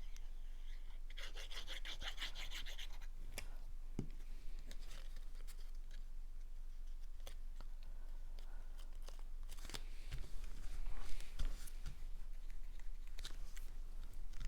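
Cardstock pieces being handled and glued: scratchy rubbing of paper with light taps and clicks, busiest about ten seconds in.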